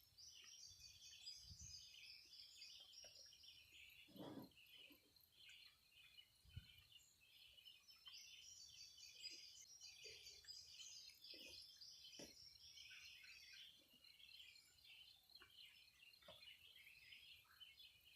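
Faint birds singing and chirping, with a few soft short knocks.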